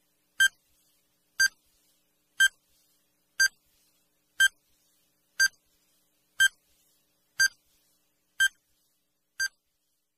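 Countdown timer sound effect: short high beeps, one each second, ten in all, with silence between them. They mark off the seconds left to answer.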